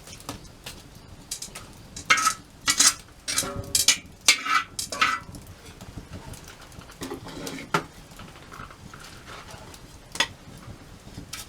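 Metal clinking and clattering, like utensils or cookware being handled: a cluster of sharp knocks with short ringing between about two and five seconds in, then a few scattered clinks.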